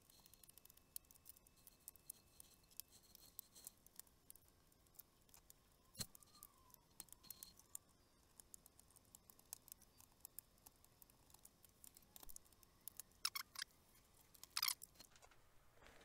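Faint clicks and ticks of a small screwdriver and fingers working at the bottom cover of a Lenovo Ideapad S340-14API laptop. There is a sharp knock about six seconds in, and a run of louder snapping clicks near the end as the cover's clips are pried loose.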